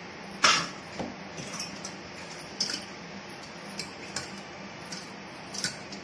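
Stainless steel kitchen vessels clinking as a mesh tea strainer is set into a steel bowl and handled: one sharp metal clink about half a second in, then several lighter taps and clinks. A steady low hum runs underneath.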